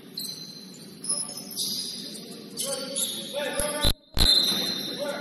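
Indoor basketball game: high, short squeaks of sneakers on the court and players' voices calling out across the hall.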